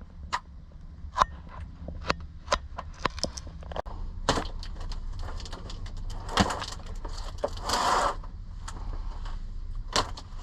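Irregular sharp clicks and knocks from mounting hardware and tools being handled, with a few short scraping rustles in the second half.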